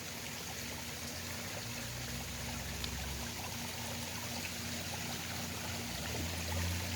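Garden pond waterfall: water running and trickling steadily over rocks, with a low hum underneath that grows a little louder near the end.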